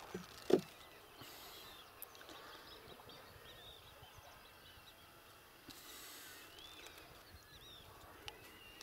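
Birds chirping and calling across a quiet lake, many short rising-and-falling chirps, with a single sharp knock about half a second in.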